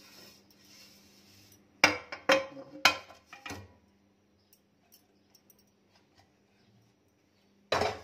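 Kitchen handling sounds as kunafa dough is spread by hand into a metal non-stick tube pan: four sharp knocks and clinks in quick succession about two seconds in, faint rustling of the dough, then one more loud knock near the end.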